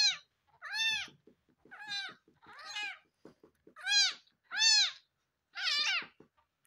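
A very young orphaned kitten mewing loudly and repeatedly while it is being bottle-fed. There are seven shrill cries about a second apart, each rising and then falling in pitch, with faint soft clicks between some of them.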